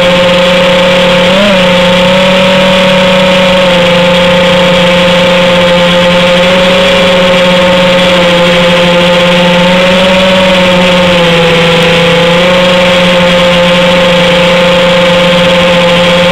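Small FPV quadcopter's motors and propellers whining steadily while it hovers, with slight pitch changes as the throttle shifts.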